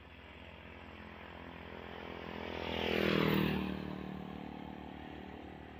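Small motorcycle passing close by: its engine grows louder, peaks about three seconds in and fades, the pitch dropping as it goes past. A steady low engine hum runs underneath.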